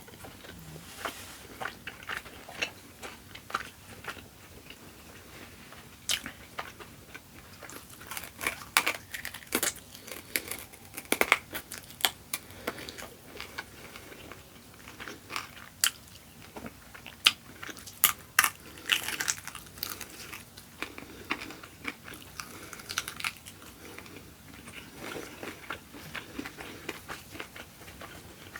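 Close-miked eating: crunchy bites and chewing, with irregular sharp crunches that come in thicker clusters twice along the way.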